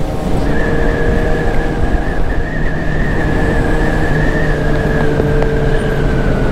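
Yamaha XJ6's inline-four engine running at a steady highway cruise under a dense low wind rumble, its pitch sagging slightly near the end.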